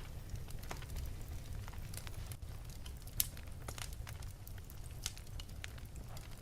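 Wood fire burning in an open fireplace: irregular sharp crackles and pops over a steady low rumble of the flames, with a louder pop a little after three seconds.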